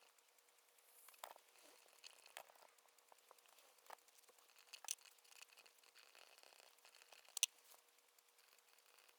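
Faint paper rustling with scattered small sharp clicks and taps from handling paper and stationery at a desk. The loudest click comes about seven and a half seconds in.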